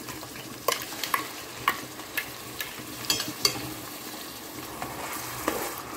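Onion paste frying in hot oil in a metal pan with a steady sizzle, while a spoon stirs it, clinking and scraping against the pan about seven times.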